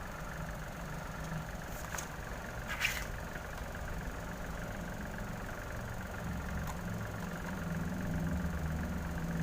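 A steady low hum of background noise, with a few short faint clicks.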